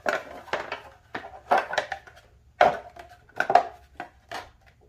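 Onewheel Pint's hard plastic fender being fitted over the tire and pushed into place against the board's frame: a string of irregular clicks, knocks and scrapes.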